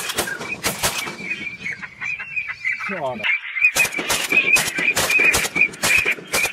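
Rapid run of duck and goose calls, honking and quacking in quick repeated notes, with a short break about three seconds in.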